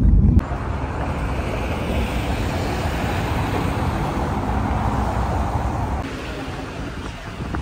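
A low vehicle engine hum cuts off about half a second in, giving way to steady outdoor street noise of traffic with wind on the microphone, which turns a little quieter about six seconds in.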